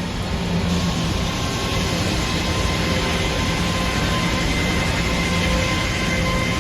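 Sawmill saw cutting through a red oak log: a loud, steady rushing noise with a constant machine hum beneath it. The sawyer says the saw is pretty dull and due for filing.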